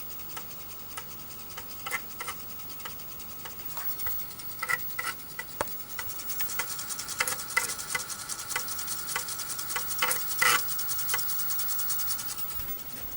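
Amiga floppy drive reading a disk: irregular clicks of the head stepping, then from about halfway a steady whir with rapid ticking that stops shortly before the end. It is a bit noisy with this disk.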